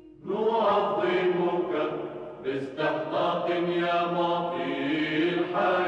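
Low voices chanting a slow religious hymn in long held notes, with a short break between phrases about two and a half seconds in.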